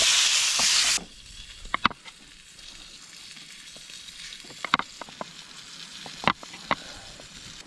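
Venison backstrap sizzling loudly in a frying pan, cut off abruptly about a second in. Then a few quiet clicks and taps of a knife on a wooden chopping board as butter is sliced and laid on bread.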